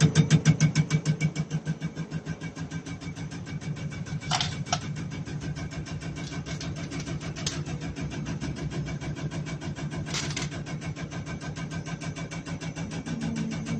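Diesel common rail test bench running with a common rail injector firing in its test chamber: a rapid, even ticking of about eight a second over the steady hum of the bench's drive. It is loudest at the start, then fainter, with a few short, sharp clinks now and then.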